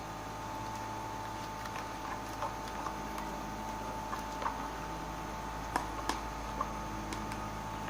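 Slime being stirred in a bowl: a mixing tool clicks and taps against the bowl at irregular moments over a steady background hum.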